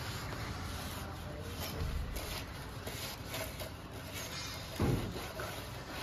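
Cement plaster being rubbed and scraped by hand onto a concrete column: a run of short scraping strokes, then one low thump shortly before the end.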